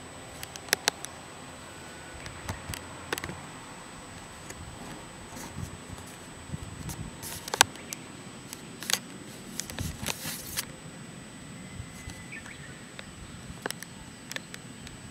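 Outdoor ambience with scattered short bird chirps and sharp clicks, over a steady faint high-pitched tone.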